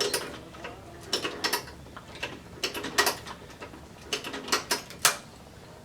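Sewing machine stitching slowly through a thick part of a leather jacket, its mechanism clacking in about a dozen irregularly spaced strokes.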